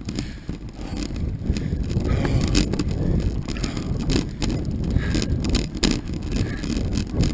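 Mountain bike with knobby tyres rolling fast down a dirt singletrack: a steady rumble of tyres on dirt, broken by irregular knocks and rattles as the bike jolts over bumps and roots, with wind buffeting the microphone.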